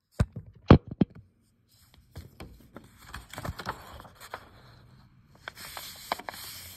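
A sheet of paper being folded in half and creased against a desktop: three sharp knocks in the first second, then, after a short pause, irregular rustling and scraping with small crackles as the fold is pressed flat.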